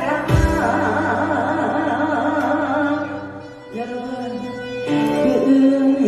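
A woman singing into a microphone with a wavering vibrato over instrumental accompaniment, with a low thump just after the start. The voice dips briefly in the middle and then comes back on a new phrase.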